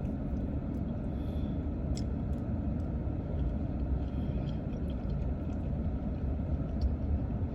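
Steady low rumble of a car heard from inside the cabin, as from an idling engine, with a couple of faint clicks.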